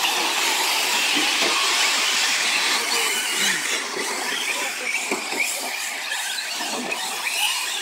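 A pack of radio-controlled 4WD short course trucks racing together on dirt: a dense, steady mix of high motor and drivetrain whine with tyre noise on the loose surface.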